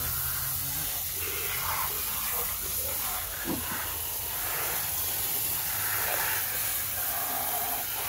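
A jet of water from a handheld spray gun hissing steadily as it washes mud off plastic toy trucks.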